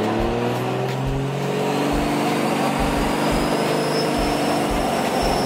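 Third-generation Cummins straight-six turbo-diesel with compound turbochargers pulling under way, heard from inside the cab. The engine note climbs a little in pitch and then holds, with a faint high turbo whistle slowly rising above it.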